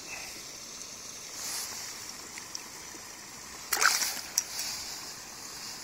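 Shallow river water running steadily, with a splash about two-thirds of the way in and a smaller sharp one just after, as a sea trout held in the water for release stirs in it.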